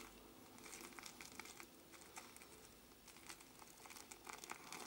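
Faint crackling of a boar-bristle shaving brush being swirled in a tub of shaving soap, working it into a thick lather.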